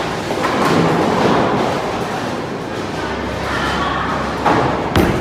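Bowling balls rolling down the lanes with a steady rumble, and two sharp knocks near the end as a ball is released onto the lane.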